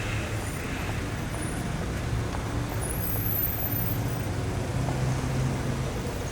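Dense city traffic: a steady wash of engine hum and tyres on asphalt, with the engine hum sitting low and strongest.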